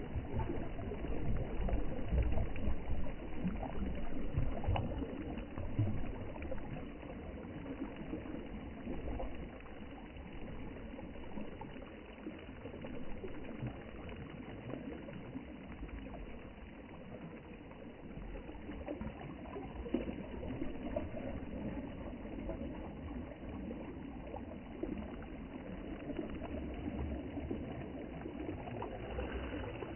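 Sea water washing and lapping in an uneven wash of noise, a little louder in the first few seconds.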